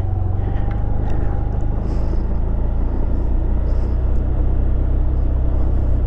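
Honda Scoopy scooter's small single-cylinder engine running steadily under load as the bike ploughs through deep, soft sand, with a continuous low rumble.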